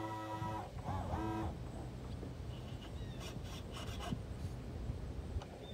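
Goose honking twice, about a second apart, each honk about half a second long, over a low steady hum and scattered rustling.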